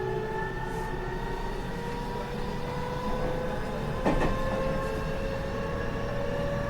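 Toshiba GTO VVVF inverter and traction motors of a JR West 207 series 1000-subseries train, heard from inside the car, whining while the train accelerates: several tones rise slowly in pitch over the rumble of the wheels. A single knock comes about four seconds in.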